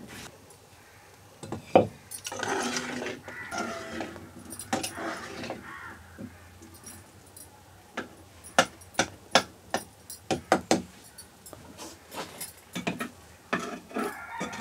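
A wooden spoon knocks and scrapes against a clay cooking pot, a quick run of sharp clicks in the second half. Birds call in the first half.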